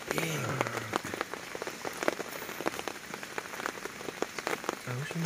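Heavy rain falling, with many sharp, irregular drops tapping close by. A short falling-pitched voice sounds at the very start and again briefly near the end.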